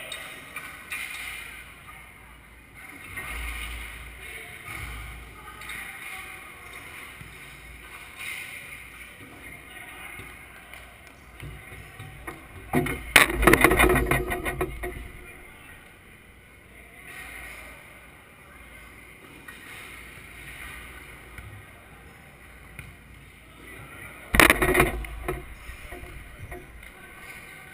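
Indoor beach volleyball game: scattered players' voices echoing in a large hall, with two loud sudden hits that each trail off in a short rattle, one about halfway through and one near the end.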